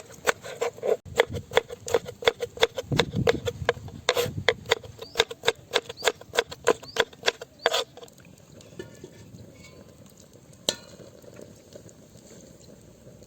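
Rapid, even knocks of a kitchen utensil during food preparation, about four a second, each with a slight ring. They stop about eight seconds in, and one more knock follows a few seconds later.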